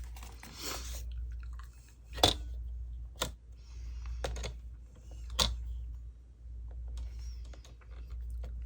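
Paper being positioned and trimmed on a paper cutter: soft rustling and scraping with about four sharp clicks, the loudest a little over two seconds in.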